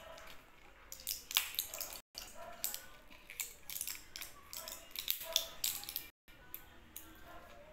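Crinkling and crackling of a vitamin blister pack being handled and opened with the fingers, a run of short sharp crackles.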